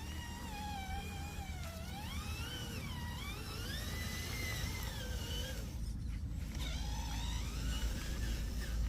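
Small electric motors of radio-controlled construction models whining, several tones gliding up and down in pitch as the throttle changes, over a steady low rumble. The whine drops out briefly about six seconds in, then picks up again.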